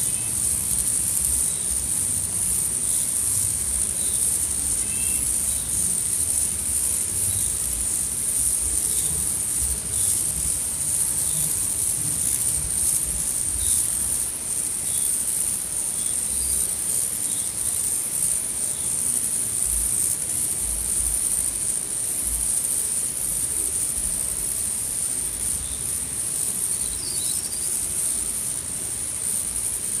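Steady high-pitched insect chorus in a garden, with faint short chirps now and then.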